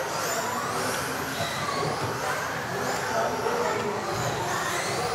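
Several RC off-road racing cars with electric motors running together, a shifting chorus of high motor whines rising and falling in pitch as the cars speed up and slow down.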